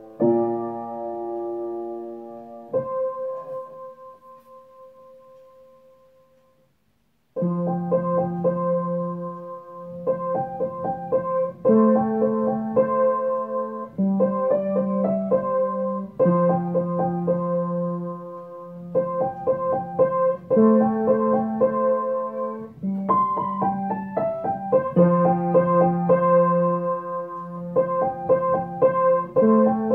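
Background piano music. A few held chords fade away to a moment of silence, then a new piano passage with a steady, repeating rhythm starts about seven seconds in.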